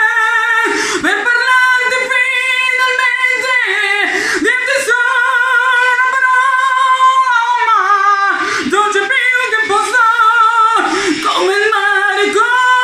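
A woman singing an Italian pop ballad in long held notes with a wavering vibrato, with brief breaths between phrases.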